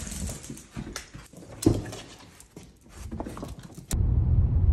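Dogs' claws clicking on a hard wood-look floor as two West Highland white terriers run, with one louder click about a second and a half in. About four seconds in this gives way to the steady low rumble of a car driving.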